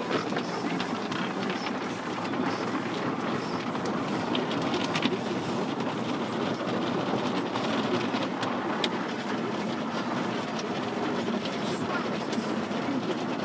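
Automatic car wash running, heard from inside the car: a steady noise of water spray and machinery on the car body, with a few sharp clicks.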